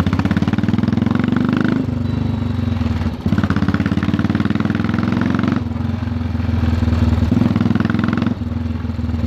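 Royal Enfield Electra 350 single-cylinder engine with a loud modified exhaust, pulling away in several stretches of rising revs. The revs drop back at each gear change or throttle lift, about four times.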